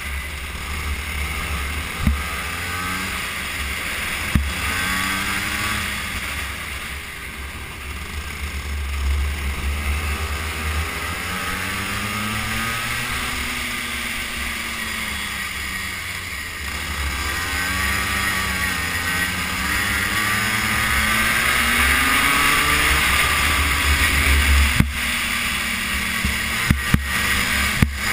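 Racing kart engine heard onboard, its pitch rising and falling again and again with the revs through the laps, with heavy wind buffeting on the microphone. There are a few sharp knocks, mostly near the end.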